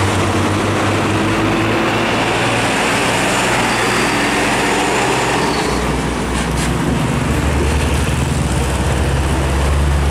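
Heavy diesel trucks towing drawbar trailers pass close by, engines running over steady tyre and road noise. A second, deeper and louder engine note comes in about six seconds in as the next rig goes past.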